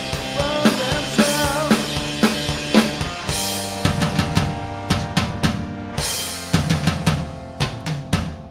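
A two-piece rock band playing live: a drum kit with bass drum and snare hits under a bass guitar riff, without vocals. About three seconds in, the bright upper notes drop away and the drums and low bass carry on.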